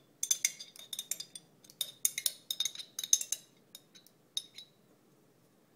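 A metal spoon scraping and clinking against the inside of a glass jar as pepper salsa is scooped out into a glass bowl: a quick, irregular run of clinks that thins out and stops about four and a half seconds in.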